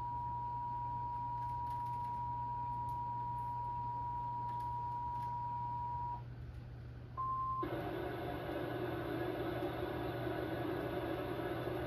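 Emergency Alert System attention signal: a steady two-tone alarm over a low hum that cuts off about six seconds in. After a second's pause comes a short single beep, then a loud, dense buzzing noise that sets in about seven and a half seconds in.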